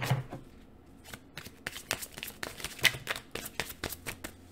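A tarot deck being shuffled by hand: a run of quick, irregular clicks and light slaps of cards against each other.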